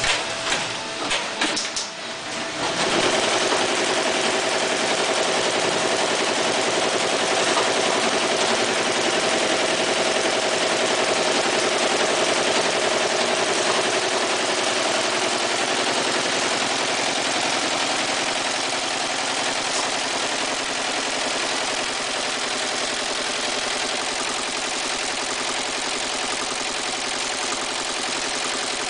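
Multi-head commercial embroidery machine: a few clicks and knocks, then about two and a half seconds in it starts running steadily, its needles stitching a design into knit beanies held in the hoops.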